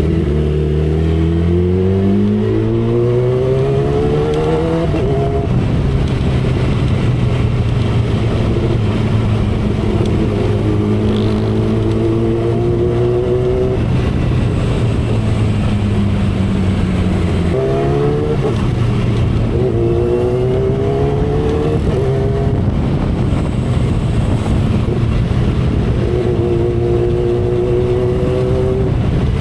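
2012 Kawasaki Ninja ZX-10R inline-four engine heard from the saddle, pulling up in revs over the first few seconds, then holding steady. Around the middle it climbs through two more quick rises, each ended by a drop in pitch at an upshift, before settling to a steady cruise, with heavy wind noise throughout.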